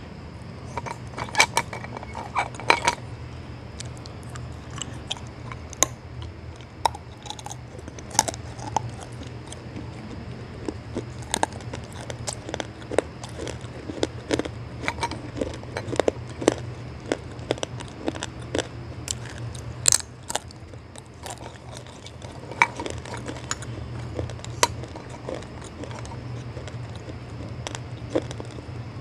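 Slabs of baked edible clay bitten and chewed close to the microphone: sharp, irregular crunches and snaps, some much louder than the rest, over a steady low hum.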